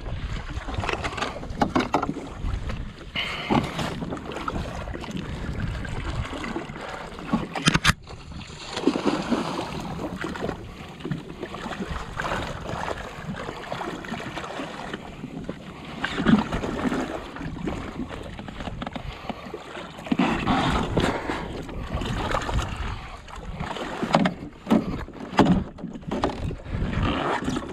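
Water sloshing and slapping against a jet ski's hull, with wind on the microphone and scattered knocks from handling a rod and reel while a hooked fish is played. There is one sharp click about eight seconds in.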